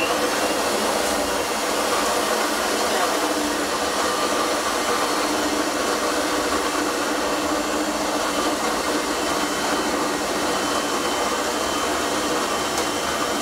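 Electric stand mixer running steadily at one speed, creaming butter and icing sugar for cookie dough.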